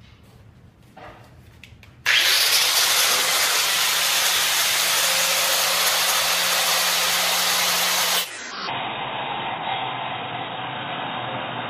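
Angle grinder switched on about two seconds in and running loud and steady as it cuts steel all-thread rod. Just after eight seconds the sound drops suddenly to a duller, lower drone, the audio of the footage slowed into slow motion.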